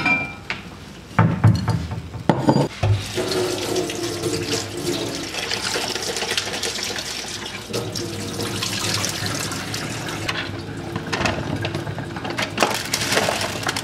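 Kitchen tap running into a stainless steel sink while vegetables are rinsed in a plastic container under the stream. There are a few knocks and clatters in the first three seconds, then a steady rush of water.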